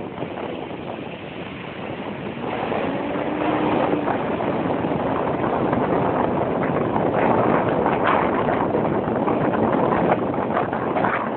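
Hong Kong double-decker electric tram running along its street tracks: a steady rumble with wind on the microphone, and a few sharp clicks in the second half.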